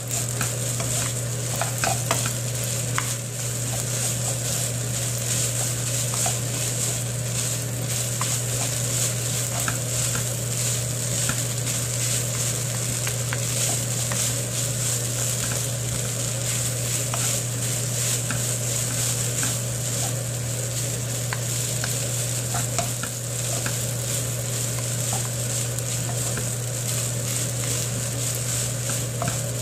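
Kimchi fried rice sizzling in a frying pan while it is stirred and scraped with a wooden spatula and a metal spoon, with frequent light ticks of the utensils against the pan. A steady low hum runs underneath.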